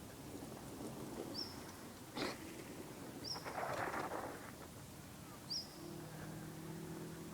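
A bird calling, a short high chirp that sweeps up then holds, repeated about every two seconds. A single sharp knock comes just after two seconds in, a brief rushing noise follows around the middle, and a low steady hum comes in near the end.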